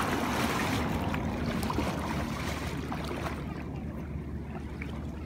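Wind rumbling on the microphone, with water sloshing as a man wades into muddy floodwater. A brighter hiss fades about three and a half seconds in.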